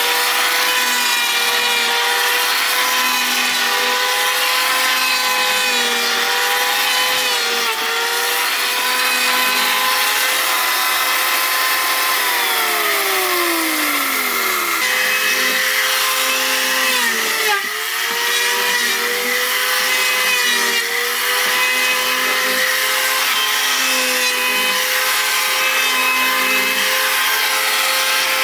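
Large powered wood-sawing machine running and cutting timber: a steady motor drone whose pitch dips and recovers under load, with one long slide down in pitch about halfway through before it picks back up.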